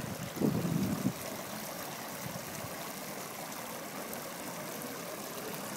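Steady, even rush of water flowing in an ornamental fish pond. A brief low sound stands out about half a second in.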